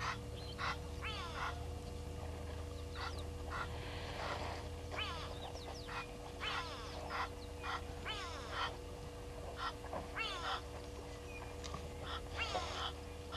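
Birds calling: a run of short calls that slide down in pitch, coming roughly one or two a second with brief pauses, over a steady low hum.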